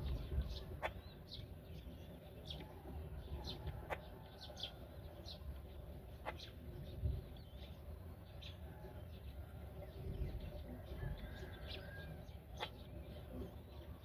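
Bird chirps: many short, high calls scattered throughout, over a steady low rumble.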